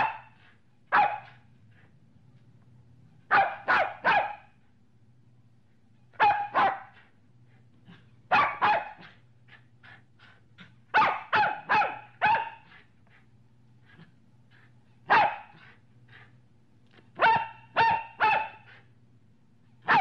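Medium-sized dog barking in short volleys of one to four sharp barks, with pauses of a second or two between volleys.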